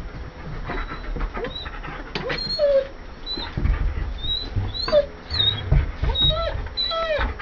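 German Shepherd dogs whining: repeated short, high-pitched whines that rise and fall, coming more often in the second half, with scattered knocks and scuffling.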